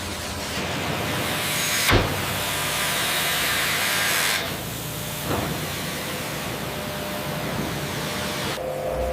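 Sawmill machinery running with a steady rushing hiss, broken by a sharp knock about two seconds in and another about five seconds in. The noise changes abruptly about two seconds in and again near the middle.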